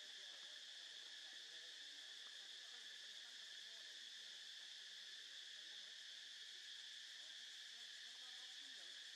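Faint, steady high-pitched drone of an insect chorus, even and unbroken.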